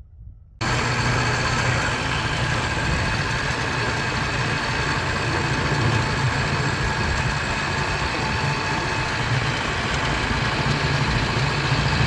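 Vehicle engine running steadily with wind rushing over the microphone while travelling along a road. It comes in abruptly just over half a second in: a low steady engine hum under loud wind hiss.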